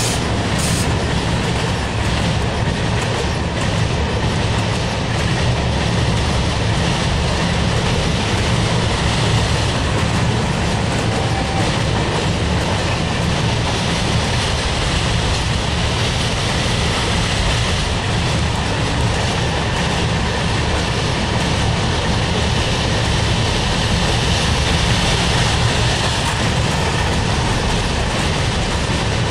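Passenger coaches of an Indian Railways superfast express train passing at speed over a steel girder bridge: a steady, loud rolling noise of wheels on rails.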